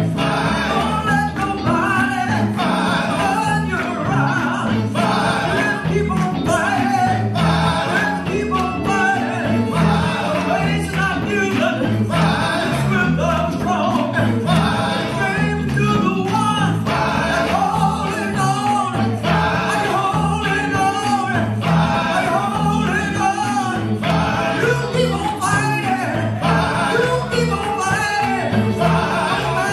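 Church music: voices singing over instrumental backing with a bass line and a steady beat.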